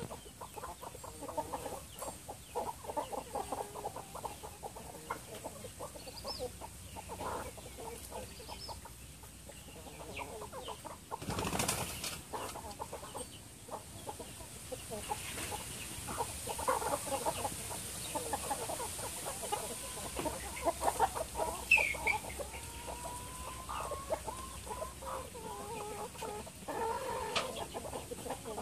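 A flock of chickens clucking and calling, many short overlapping calls throughout, with a brief flurry of wing flapping near the middle.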